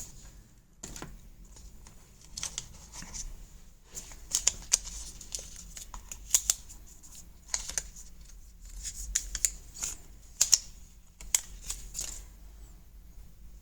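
Apple AirPods Pro 2 retail box being opened by hand: irregular rustling, scraping and sharp clicks of card and paper packaging, in scattered clusters.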